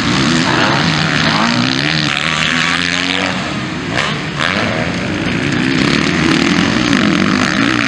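Several MX2-class motocross bikes racing past on a dirt track, their engines revving up and down and overlapping. There is a brief sharp click about four seconds in.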